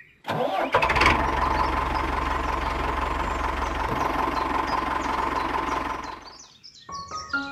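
Small engine running steadily: it starts abruptly, is loudest in the first second, then runs evenly and dies away about a second before the end.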